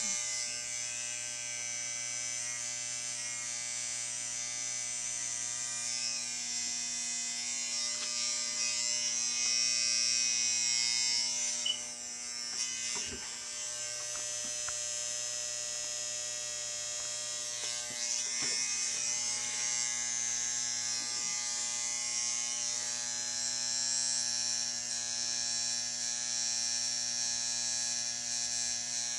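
Electric hair clippers buzzing steadily while cutting hair, with a brief drop in the sound about twelve seconds in.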